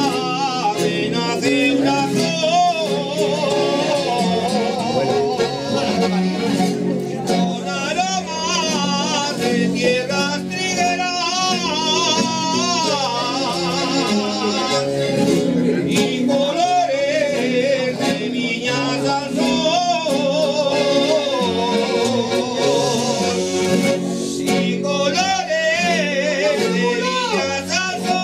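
A group of men singing with a wavering vibrato, accompanied by a guitar and an accordion.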